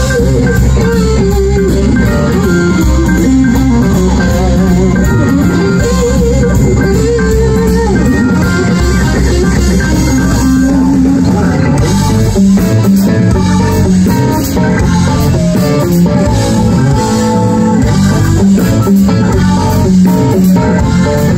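Live rock band heard from the audience through the PA: an electric guitar lead with bent notes over bass guitar and drums, with no singing. From about twelve seconds in the band plays more fully, with busier drums and heavier bass.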